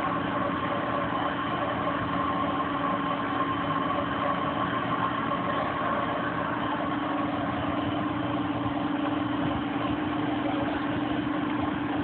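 Harrison Alpha 1460XS CNC/manual lathe running, its spindle turning a metal bar while the tool cuts: a steady machine hum with a thin whine that fades about halfway through.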